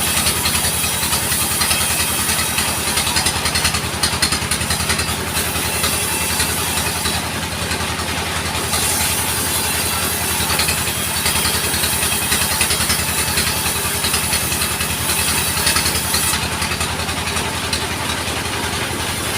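Band sawmill's engine running steadily with a fast even pulse, the saw blade hissing along with it.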